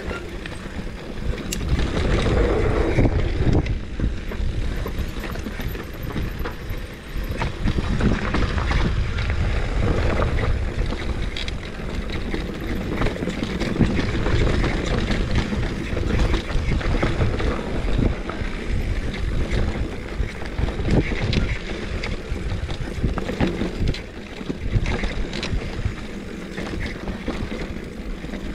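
A mountain bike rolling fast over a rough dirt and rock trail, with wind buffeting the microphone, tyres crunching, and frequent short knocks and rattles as the bike hits bumps.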